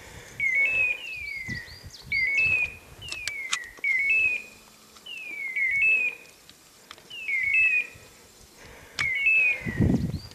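Pointing-dog beeper collar in point mode, sounding the same electronic call over and over, a short stepped chirp then a falling whistle, roughly every second and a half: the signal that the setter is standing on point. Faint crunching footsteps in snow and brush underneath.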